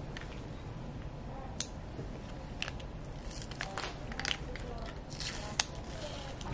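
Crinkling, rustling and small snaps of plastic medical packaging being handled and peeled open, with a few sharp clicks, the sharpest near the end.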